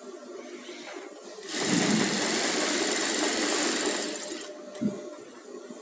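Industrial sewing machine stitching a blouse piece to its lining in one run of about three seconds, starting about one and a half seconds in and winding down to a stop; a short knock follows just before the end.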